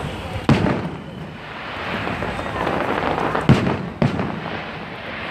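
Aerial fireworks bursting: a loud boom about half a second in, then two more in quick succession near the end, each dying away with a short rumble.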